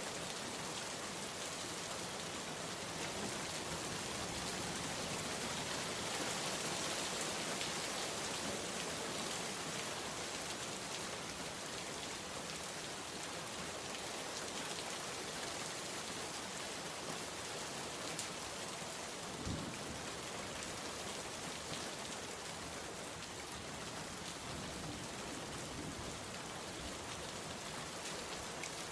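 Steady rain falling and pattering on surfaces, with one brief low thump about two-thirds of the way through.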